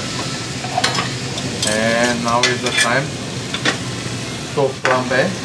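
Filet mignon sizzling in a frying pan with olive oil and shallots, a steady frying hiss, with the spoon and fork clinking and scraping against the pan as the meat is turned.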